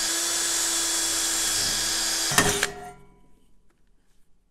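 Cordless drill running steadily with a motor whine as it bores a hole through 16-gauge sheet metal. About two and a half seconds in it stops with a sharp clack and spins down, then all is quiet.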